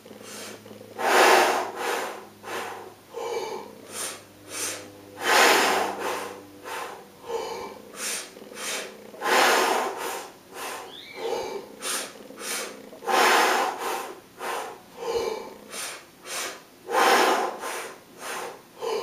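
A man doing the "in sip sip out push push" breathing exercise for brass players, repeated over and over: a full breath in through an open mouth, two quick sips of air, a full breath out, then two short pushes of the last air. A loud breath comes about every four seconds, with shorter breaths between.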